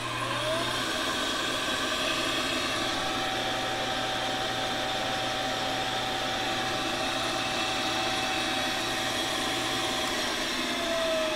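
A Kent/Jet/Acer belt-driven vertical milling machine spins up to speed with a rising whine, then runs steadily and pretty quiet, with a little jingle from the handle on the belt tensioner. Just after ten seconds it is switched off, the motor hum stops, and the spindle begins to wind down with a falling whine.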